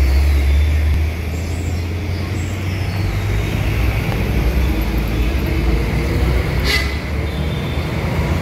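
Road traffic with a loud, steady low engine rumble from idling heavy vehicles and motorbikes, a little louder in the first second. About seven seconds in, a brief sharp sound cuts across it.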